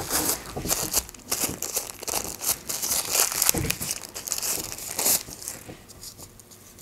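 Thin plastic packaging wrapping crinkling and rustling as it is pulled out and scrunched in the hands, dying down about five seconds in to a few faint clicks.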